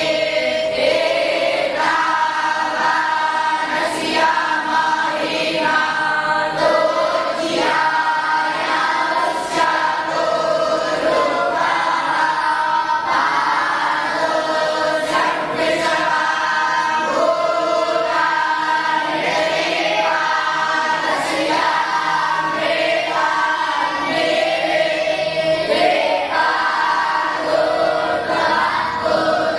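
A group of voices chanting together in unison, in sustained phrases of a second or two with short breaks between them.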